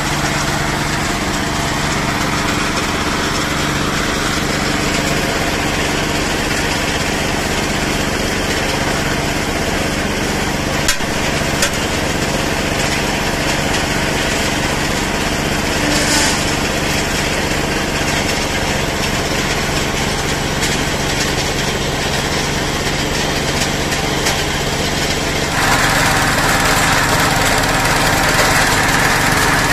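Small engine of a belt-driven water well drilling rig running steadily under load. The tone changes abruptly near the end.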